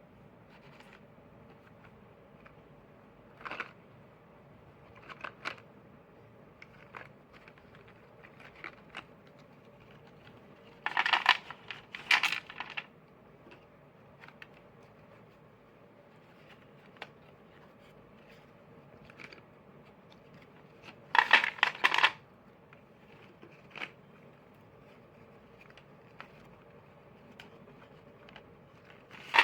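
Crunchy crackling made close to the microphone: scattered single crackles, with two louder runs of dense crunching, one a little before the middle and one about three-quarters of the way through.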